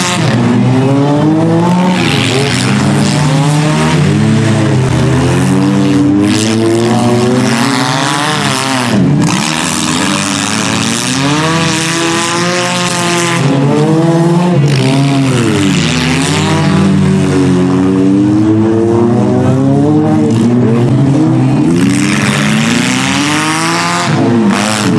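Engines of several demolition derby cars revving and running hard, overlapping, their pitch repeatedly rising and falling as they accelerate and back off.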